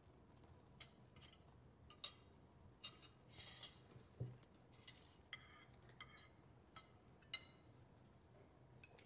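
Faint, scattered clinks and taps of spoons against glass jars and dishes at a meal table, about a dozen separate strikes, with a soft thump about four seconds in.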